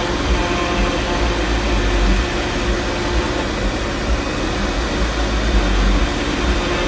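A 300-watt spindle on a CNC router running steadily, with a constant hum and a whirring noise.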